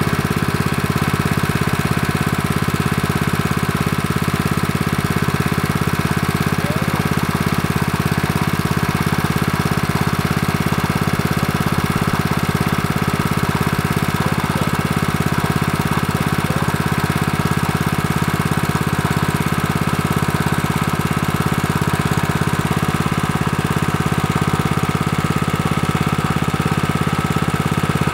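Honda GP160 single-cylinder four-stroke engine on a portable water pump, running steadily at a constant speed.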